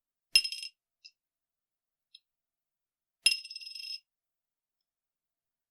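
A 1993 US penny, copper-plated zinc, dropped twice onto a bowl from about an inch and a half: two sharp clinks about three seconds apart, each ringing briefly with high tones, the second ringing a little longer.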